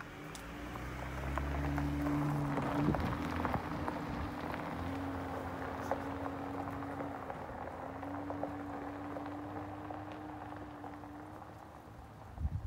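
Pickup truck driving away on a gravel road: a steady engine hum with tyres crunching on the gravel, swelling briefly and then slowly fading into the distance. A short low thump near the end.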